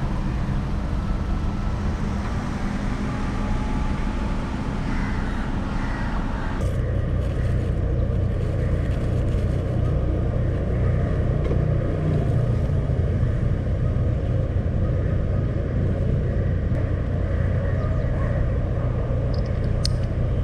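Steady low rumble of street traffic, which turns heavier and lower about six and a half seconds in.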